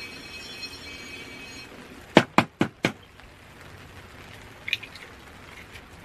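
An egg tapped four times in quick succession against a griddle pan to crack it, followed near the end by a small crackle as the shell is pulled open over the pan.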